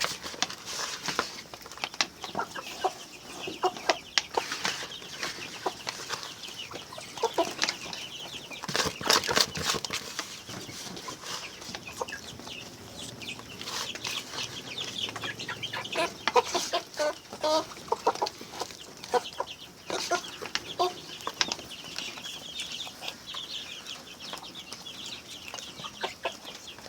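A flock of grower-stage chickens clucking while they feed, with many short, sharp taps throughout as they peck at wet mash.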